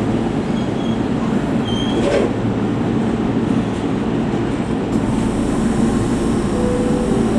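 A JR West 681 series electric multiple unit running slowly as a deadhead move, with a steady rumble of motors and wheels on the rails. Two brief high squeaks come in the first two seconds, and a single click about two seconds in.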